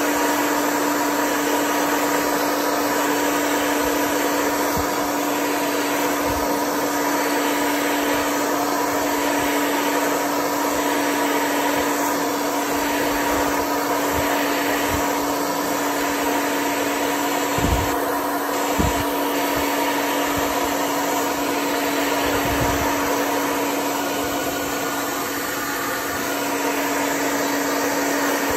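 Handheld hair dryer running steadily: a constant blowing noise with a steady motor hum under it. Two brief light knocks a little past the middle.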